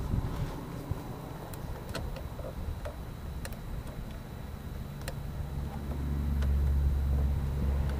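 Light, scattered clicks and taps of a small plastic part being worked by hand into the motorcycle's side panel. A low, steady rumble swells in about five and a half seconds in and gets louder.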